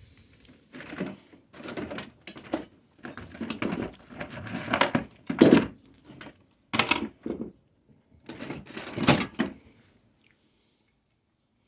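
Irregular clattering and rustling of hard objects being handled, in a string of short bursts that stop about ten seconds in.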